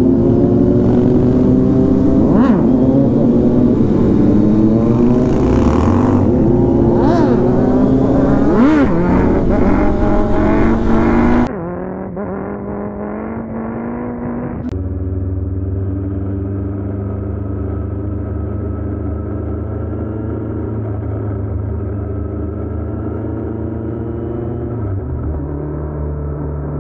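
Motorcycle engines on a group ride through traffic, led by the rider's own Kawasaki Z900 inline-four, revving up and falling back through gear changes for roughly the first eleven seconds. Then the sound cuts abruptly to a duller, steady low drone.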